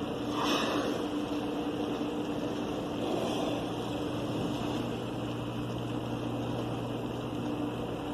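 Steady hum of a ship's engines and machinery over wind and sea noise. A brief rush of noise comes about half a second in, and a fainter one about three seconds in.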